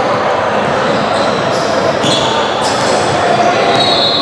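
Basketball being dribbled on a gym floor during play, with short high sneaker squeaks about two seconds in and near the end, over a steady murmur of voices echoing in the hall.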